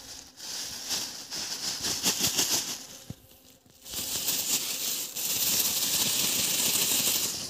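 Polythene bag rustling and crinkling as it is handled close to the microphone: irregular crackly strokes for the first few seconds, then, after a short lull, a steadier, louder rustling hiss.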